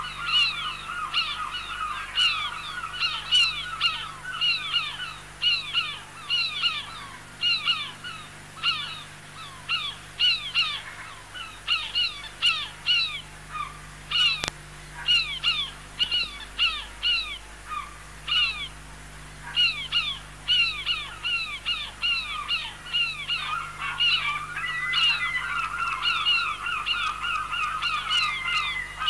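Harsh bird calls repeated several times a second without a break, each call sliding downward in pitch.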